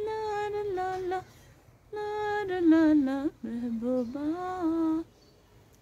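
A woman humming a slow tune unaccompanied, in three phrases of held, wavering notes, falling silent about a second before the end.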